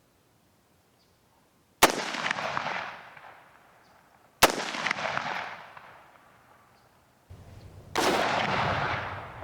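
Two rifle shots from an AR-15 A2, about two and a half seconds apart, each cracking sharply and echoing away over a second or so. Near the end comes a louder rush of noise without a sharp crack.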